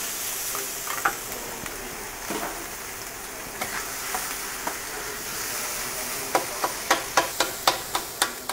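Shaved chicken and beef kebab meat sizzling as it fries on a flat-top griddle, with a metal scraper knocking on the hot plate now and then. Near the end comes a quick run of sharp taps, about three or four a second, as the scraper chops the meat.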